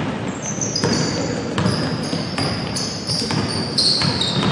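Basketball being dribbled on the court, a bounce about every three-quarters of a second, with many short high sneaker squeaks over a murmur of background voices.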